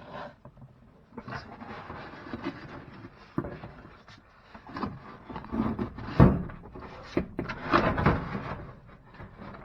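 Knocks, clatter and rustling from handling the washer's plastic drain filter and the debris in it, with the loudest knock about six seconds in.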